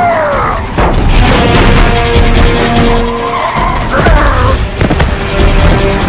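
Animated-film soundtrack: dramatic music with loud sound effects over it. A sudden hit comes about a second in, followed by a dense rushing noise under held notes, and a short gliding sound near four seconds.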